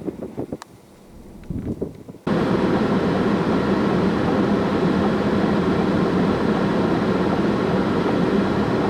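Wind buffeting the microphone in uneven gusts. About two seconds in, this gives way suddenly to steady, loud road and engine noise from a moving vehicle, with a low hum under it.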